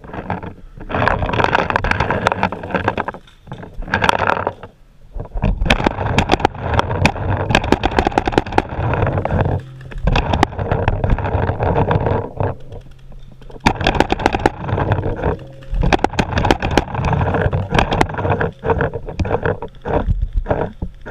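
Paintball markers firing in rapid, dense strings of shots, with brief lulls about 5, 10 and 13 seconds in.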